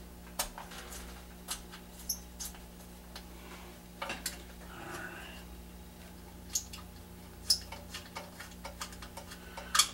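Scattered light clicks and taps of small metal parts and bolts being handled and threaded by hand on a small Briggs & Stratton engine, irregular and a second or so apart, over a faint steady hum.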